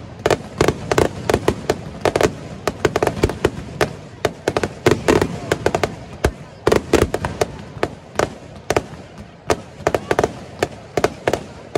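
Aerial fireworks shells bursting overhead in a continuous, irregular barrage of sharp bangs, several a second.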